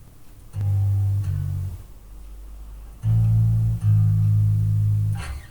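Electric bass guitar played through a bass amp cabinet, heard through a webcam microphone. It plays a few low sustained notes: a short phrase that steps up in pitch about a second in, then two long held notes near the end.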